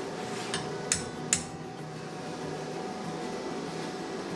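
Two sharp metal clinks, about half a second apart and about a second in, from the steel coat hook being handled in a bench vise.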